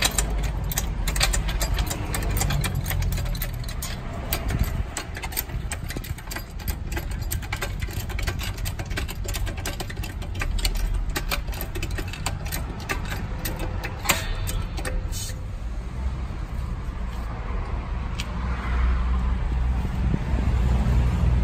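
TGB Blade 550 ATV's single-cylinder four-stroke engine idling steadily, with a fast light ticking over it for roughly the first fourteen seconds. It is being run just after an engine oil and filter change so the fresh oil circulates before the level is rechecked.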